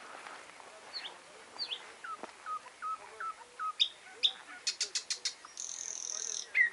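Nightingale singing a varied song: a couple of downslurred whistles, a run of five repeated notes, then a quick series of loud clicks and a buzzy trill near the end.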